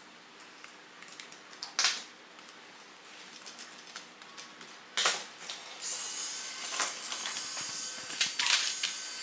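Plastic clicks and knocks of the robot-kit parts being handled and screwed together. About six seconds in, a steady whirr begins: the assembled toy robot's small electric motor and plastic gearbox running.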